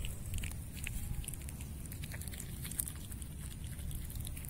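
A baby otter moving through grass close to the microphone: small irregular rustles and clicks over a steady low wind rumble.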